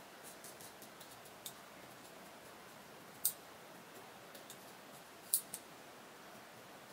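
Small scissors snipping through the lace of a lace-front wig at the hairline: a few short, sharp snips, the loudest about three seconds in and a quick pair about five seconds in, with faint ticks between.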